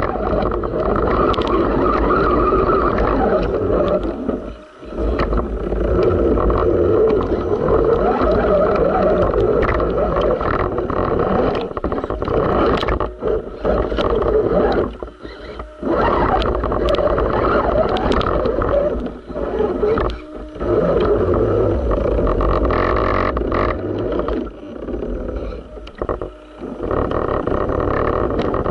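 Radio-controlled rock crawler driving through a shallow creek, heard from its own onboard camera: the electric motor and drivetrain whine along with splashing water, and the sound drops away briefly several times.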